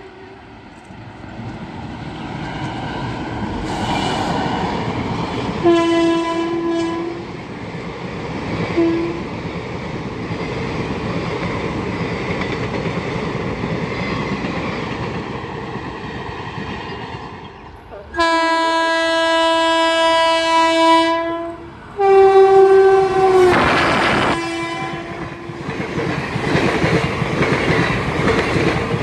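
Indian Railways passenger train passing with its locomotive horn sounding: a blast, a short toot, then two long blasts, the last dropping in pitch partway. The running noise of the train swells as it nears, and near the end the coaches go by close with wheels clattering over the rail joints.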